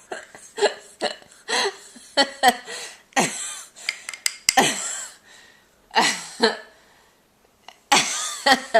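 Short bursts of laughter and hiccup-like vocal sounds, with breaths in between. The sounds come in quick, separate bursts and ease off briefly about two-thirds of the way through.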